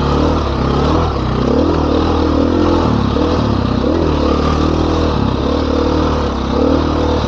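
Dirt bike engine under way, the note rising and falling again and again as the throttle is opened and rolled off.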